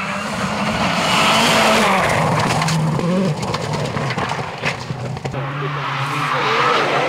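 Rally car on a stage: the engine revs up hard, then comes off the throttle with a run of sharp crackles and pops before pulling again. Tyres squeal near the end.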